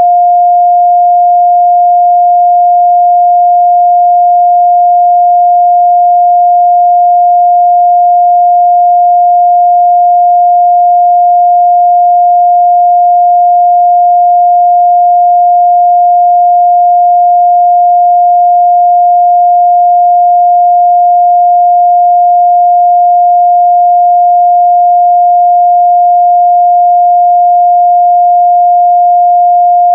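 A steady 706 Hz sine-wave test tone, a single pure pitch held at a constant loud level, used to check a speaker's or headphone's midrange response.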